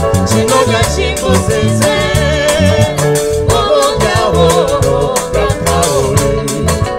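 Band music with a woman singing lead, her voice wavering in vibrato, over drum kit and bass guitar keeping a steady beat.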